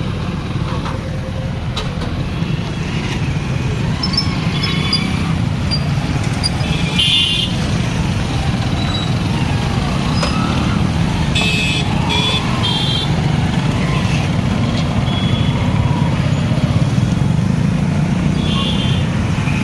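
Many motorcycles and scooters idling and pulling away together: a steady low engine drone, with short high horn beeps now and then.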